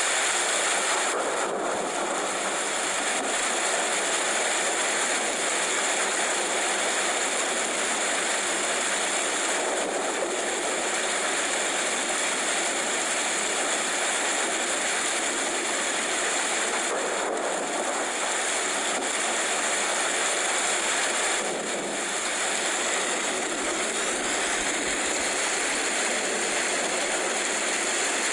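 Rain falling steadily, an even hiss of drops with no let-up.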